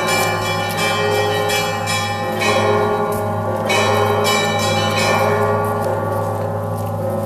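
Orthodox church bells ringing a Sunday peal. A deep bell hums steadily under quick, even strokes of smaller bells, about two or three a second, with heavier strikes a few seconds in. The strokes thin out toward the end while the bells keep ringing.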